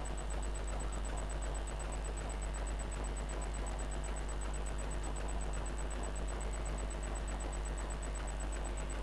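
Steady low electrical mains hum with a faint, thin high-pitched whine, from a computer power supply running under a 60 W test load on its 12 V rail.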